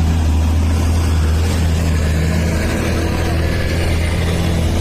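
Diesel engine of heavy mining machinery running steadily, a constant low drone with no change in pitch.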